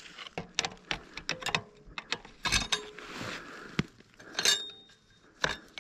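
Irregular metallic clicks, knocks and clinks of motorcycle brake parts and tools being handled, a few of them ringing briefly. It sounds like the dirt bike's failed brake being examined after its pad came loose.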